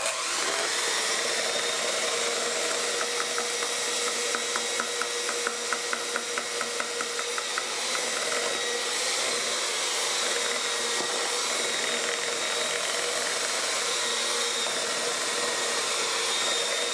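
Electric mixer running steadily, beating thick chocolate cake batter as flour and milk are worked in until smooth. For a few seconds near the start there is a rapid, even ticking over the motor hum.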